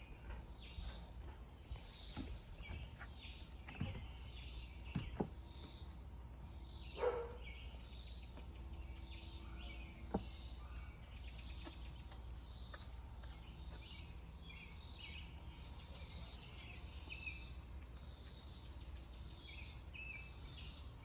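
Quiet backyard ambience: a high chirp repeats about once or twice a second, over a low rumble, with a few light knocks and one brief louder sound about a third of the way through.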